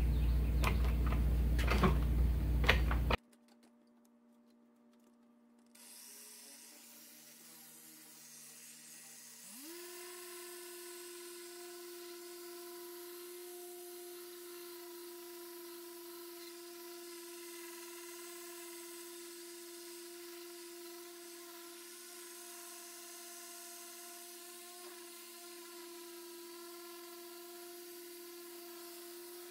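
Handheld electric dual-action polisher with a foam pad running against a car's cowl panel, a motor whine. The loud, rough sound of the first three seconds cuts off abruptly to near silence. A fainter steady whine then rises in pitch about nine seconds in and holds.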